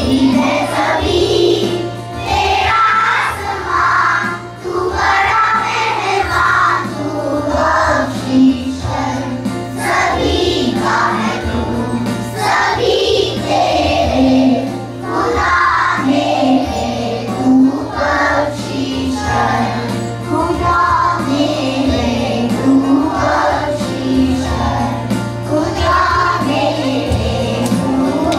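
A group of young children singing a prayer together in unison.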